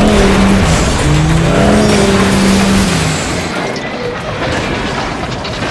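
Sound effects of a train wreck: dense crashing and grinding noise with long metal screeches as the derailed cars tumble and slide through snow. It eases to a lower, thinner rumble about three seconds in.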